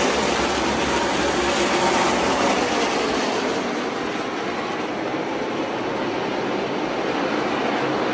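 A field of NASCAR Xfinity Series stock cars' V8 engines running at speed around a short oval, a steady loud mass of engine noise, with the engines' pitch plainer for the first few seconds.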